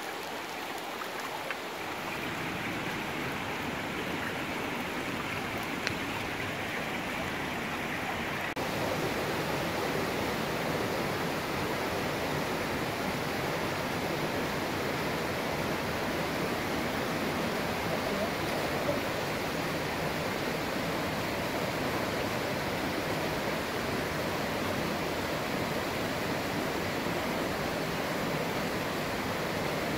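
Small mountain creek running over rocks and spilling down small cascades into a pool: a steady rush of water, a little louder from about two seconds in.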